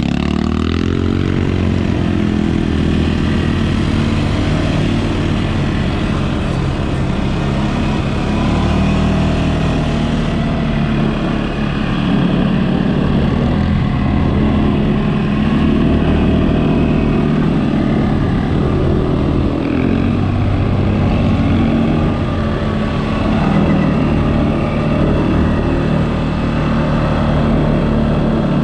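CFMOTO ATV engine running while riding, its pitch climbing just after the start and then rising and falling with the throttle.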